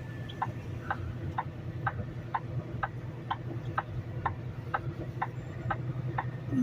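Turn-signal flasher ticking steadily about twice a second in a semi truck's cab, over the low hum of the truck's engine.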